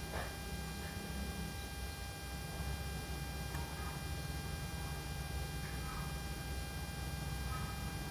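A low, steady background hum with faint, even tones above it, and a few faint brief sounds here and there.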